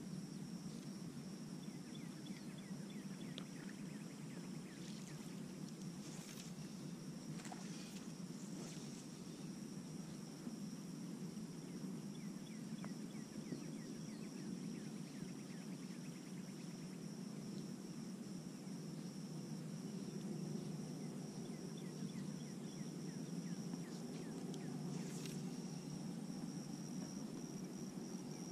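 Quiet ambience on open water: a low steady rush of wind and water, a thin steady high-pitched hum, and a few brief knocks or splashes, about three in all.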